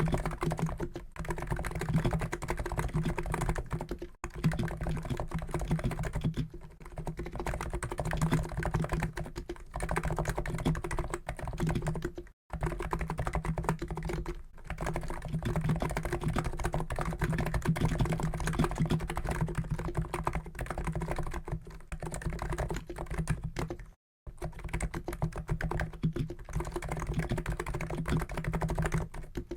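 Fast, continuous typing on a COX Endeavour keyboard with Noppoo NiZ electro-capacitive switches (50 g), the keystrokes running together with a few short breaks.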